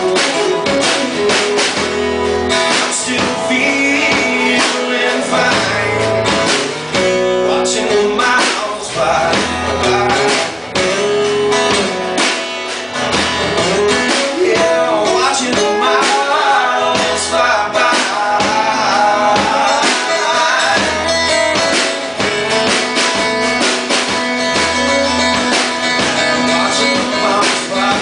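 Instrumental break of a rock song: guitar over a steady drum beat.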